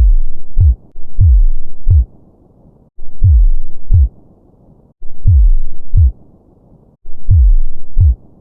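Heartbeat sound effect: loud, deep double thumps (lub-dub), five beats, the first two about a second apart and the rest about every two seconds.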